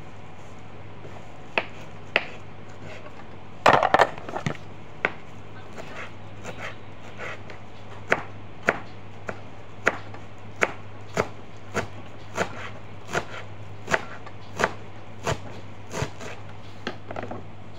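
Knife chopping fresh parsley on a cutting board: a few single knocks, a quick flurry about four seconds in, then an even run of strokes about one and a half a second through the second half.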